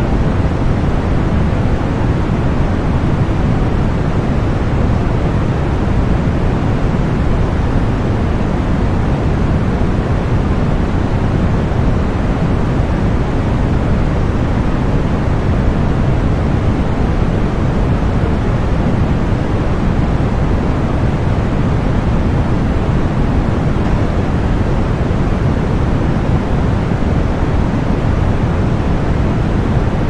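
Continuous synthetic masking noise for tinnitus relief: a loud, even hiss weighted toward the deep end, with no swells, tones or breaks.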